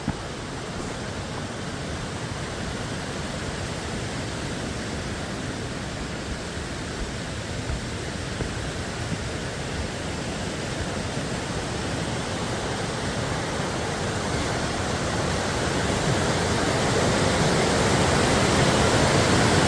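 Rushing water of May Creek, a steady rush that grows gradually louder over the second half.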